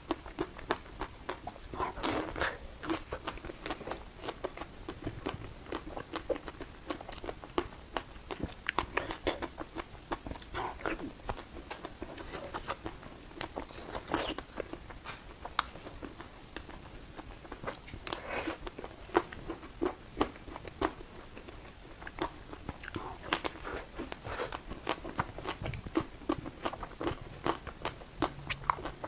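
Close-up biting and chewing of crisp frozen ice cream: a steady stream of small crackling crunches, with a few louder bites every several seconds.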